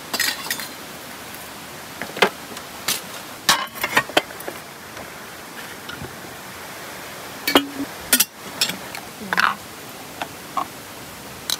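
Scattered knocks, clicks and clinks of camping gear being handled and set out, over a steady hiss.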